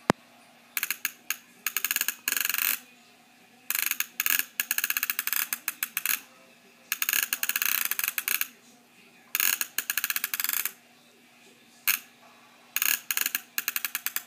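Rapid rattling clicks in bursts of one to two seconds, about six times with short pauses between, with a single sharp click at the start.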